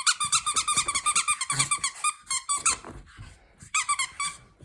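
Squeaker in a Pomeranian's plush teddy-bear toy squeaking in rapid runs as the dog chews it. A long run stops a little before three seconds in, and a short run comes near the end.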